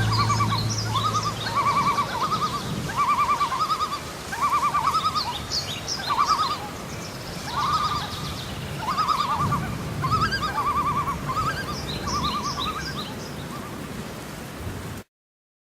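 Natural outdoor ambience of animal calls: short trilled calls repeat over and over, with higher chirps above them. It cuts off suddenly near the end.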